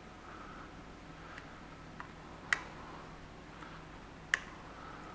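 Sharp clicks of a motorcycle's instrument display button being pressed to cycle the odometer, two loud clicks under two seconds apart after a couple of fainter ticks, over a faint steady hum.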